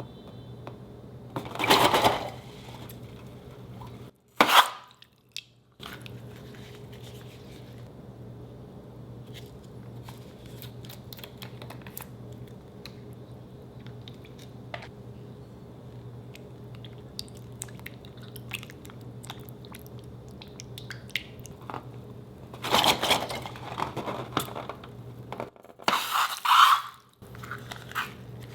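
Slime being pressed and squished by hand, with a few loud wet squishes and small crackling pops in between. A faint steady low hum runs underneath.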